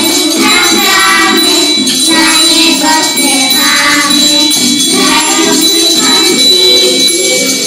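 Song sung in chorus over instrumental backing music.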